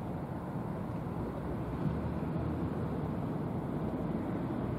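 Steady low rumble of a passing cement carrier under way, with no sudden sounds.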